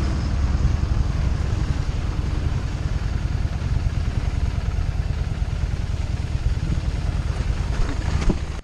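Harley-Davidson Street 750's V-twin engine running steadily with a deep, even rumble, falling away right at the end.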